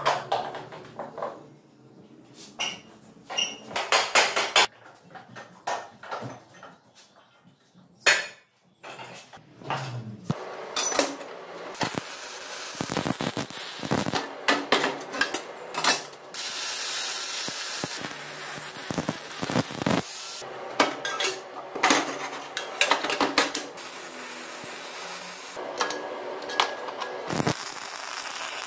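Metal clinks and knocks of hand tools on steel parts for the first ten seconds or so. Then a MIG welder crackles and hisses in runs of several seconds, with short breaks between welds.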